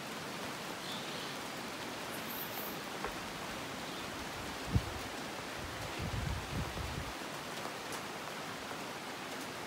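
Steady hiss of rain falling on the surrounding rainforest foliage. A single sharp thump comes about five seconds in, followed by a few low bumps a second later.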